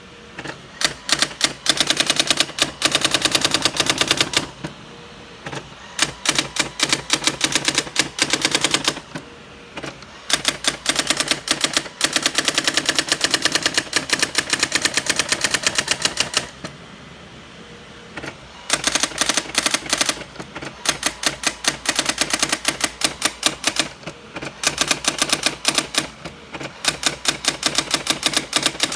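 Brother GX-6750 electronic daisy-wheel typewriter printing its built-in demo: rapid rattling strikes of the print wheel, many per second, in runs of a few seconds broken by short pauses between lines.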